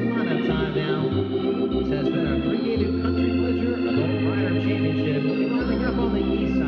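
Organ music playing: held chords over a bass line that steps from note to note.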